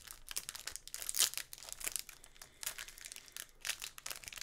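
Plastic wrapper of a trading card pack crinkling and crackling as hands twist and tear it open, in quick irregular crackles, loudest about a second in.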